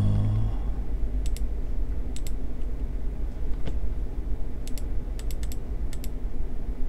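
Computer mouse buttons clicking: about a dozen sharp clicks, mostly in quick pairs, over a steady low hum.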